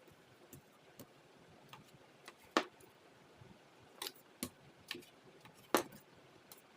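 Irregular sharp clicks and taps of kitchen work, the loudest two about two and a half and nearly six seconds in.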